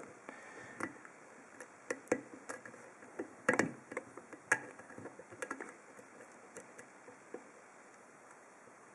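Irregular small metallic clicks of a hook pick working the security pins of a brass Abus 84/50 padlock held in a false set, with a louder cluster about three and a half seconds in.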